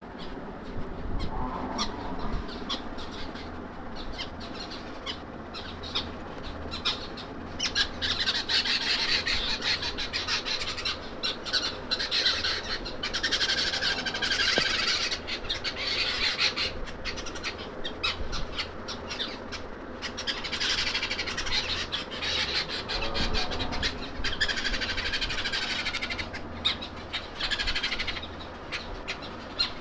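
Morning chorus of many birds chirping and calling together, swelling into louder spells of dense chirping several times, over a low steady hum.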